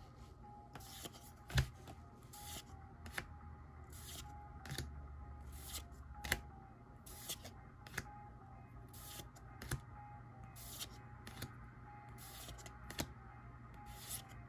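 Pokémon trading cards being slid off the stack and flipped one by one: a short papery swish of card on card about once a second, with a few sharp clicks between them.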